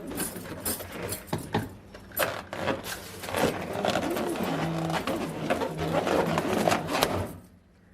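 Rubber balloons being handled and rubbed, squeaking and crackling with many short sharp clicks. The sound falls away about seven and a half seconds in.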